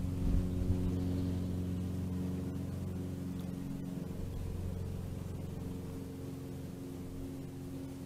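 Steady low hum of a running engine or motor, several low pitches together, slowly fading.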